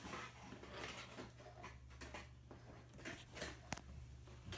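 Faint scraping and tapping of a half-cup measuring cup scooping flour, with one sharp click about three and a half seconds in.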